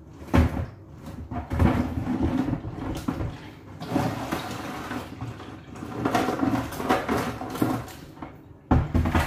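A red plastic bucket being handled and tipped, with irregular knocks and scrapes as a squid is pulled out of it.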